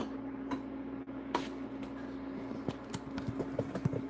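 Scattered light clicks and taps of kitchen handling over a steady low hum. The taps come more often near the end.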